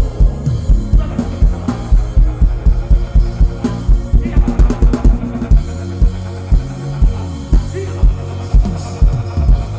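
Worship band music without singing: a drum kit keeps a steady kick-and-snare beat over a held bass line, with a quick drum fill about halfway through.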